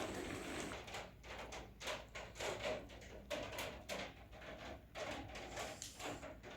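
Irregular light knocks and clicks of things being handled, a few each second.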